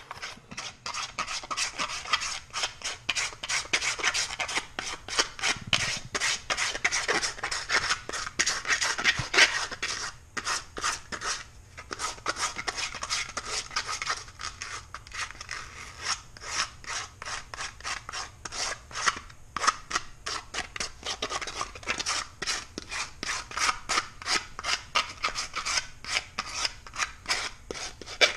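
A hand file scraping back and forth across a plastic deer ear liner, shaping it: quick, steady rasping strokes, several a second, with a few brief pauses.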